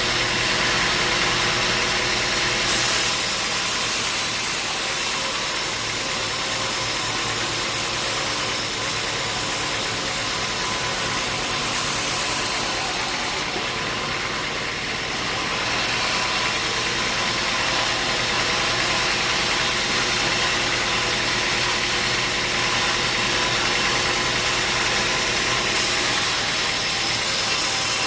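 Sawmill machinery running steadily, a motor's hum under a loud hiss, with the hiss changing in strength a few times.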